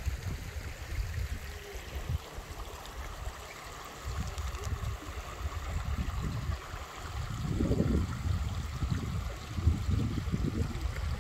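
Shallow creek water running and babbling over stones and pebbles, a steady rushing sound, with uneven low rumbling that comes and goes underneath it.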